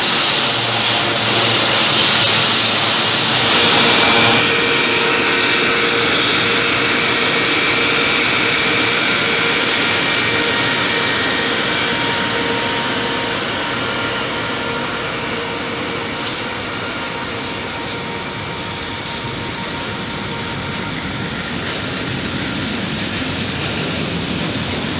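Freight train of hopper wagons rolling past close by behind an electric locomotive: a steady rumble of wheels on rail with faint whining tones. The sound changes abruptly about four seconds in.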